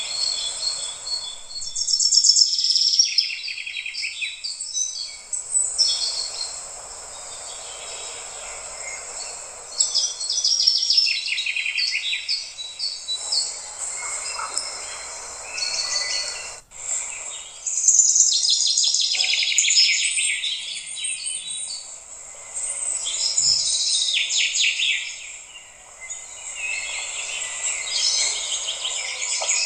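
Many small birds chirping and trilling in a busy, continuous chorus, over a soft steady hiss.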